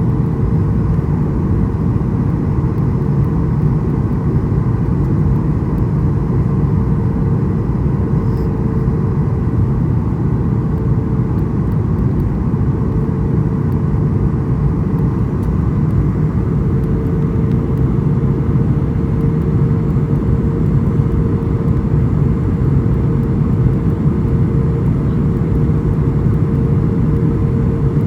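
Boeing airliner cabin noise on the landing approach: a steady roar of jet engines and airflow with one steady tone running through it.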